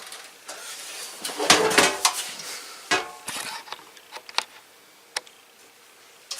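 Handling noise: clicks and clatter of hard plastic and metal parts being handled, with a cluster of rattling about a second and a half in, then a few single sharp clicks.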